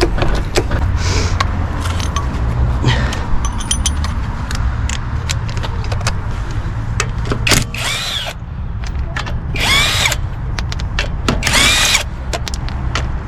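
Cordless power tool run in three short bursts in the second half, each spinning up and winding down, as wheel bolts are undone. Before that come scattered clicks and knocks of tools on metal.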